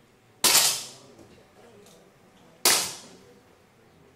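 Two 10 m air pistol shots about two seconds apart, each a sharp crack with a short ring-out in the range hall.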